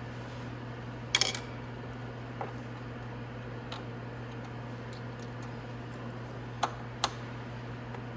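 Scattered small clicks and clinks of hand tools and small bolts against the motorcycle's plastic fairing as its Allen bolts are taken out. The loudest is a quick rattle of clicks about a second in, with two sharper clicks near the end, over a steady low hum.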